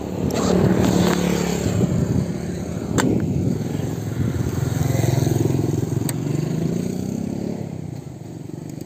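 Small motorcycle engines running on the road, one passing close by: its sound swells and then fades away near the end. Two sharp clicks, about three seconds apart, stand out.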